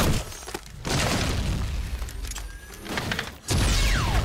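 Animated TV episode soundtrack with dramatic sound effects and score: crashes and thuds, then about three and a half seconds in a sudden loud rumbling blast with a whistle that falls steeply in pitch.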